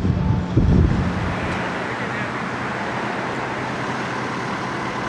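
Wind buffeting the microphone for about the first second, then steady street traffic noise, with a tanker truck driving past.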